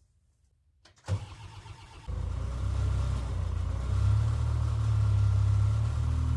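Skid steer engine started: the starter cranks about a second in, the engine catches about a second later, and it settles into a steady, low idle.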